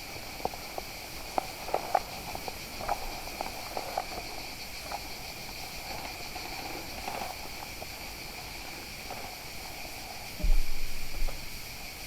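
Steady high insect chirring outdoors, with light crackles and rustles of steps in leafy undergrowth during the first few seconds, and a brief low thump on the microphone about ten and a half seconds in.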